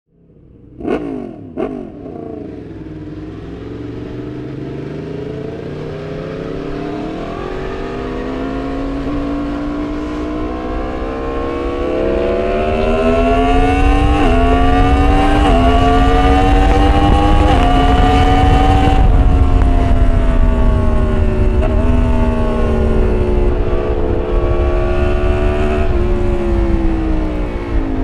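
Yamaha MT-10's decatted crossplane inline-four, heard from inside the rider's helmet with wind noise. Two quick throttle blips about a second in, then the engine pulls with its pitch climbing for over ten seconds. It holds for a few seconds, then drops as the throttle eases off.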